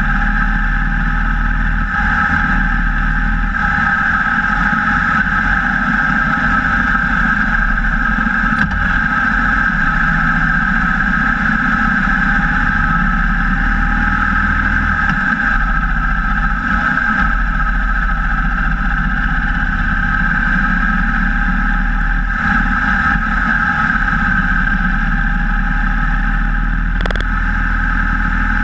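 Cruiser motorcycle riding steadily at speed on the open road: a continuous mix of engine, tyre and wind noise, heard from close beside the front wheel.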